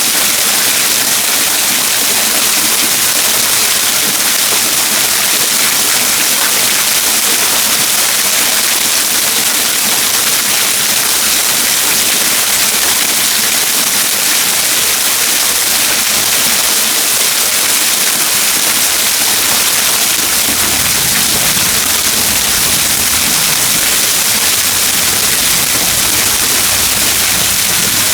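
Waterfall rushing as a loud, steady roar of falling water, with a deeper rumble filling in about two-thirds of the way through.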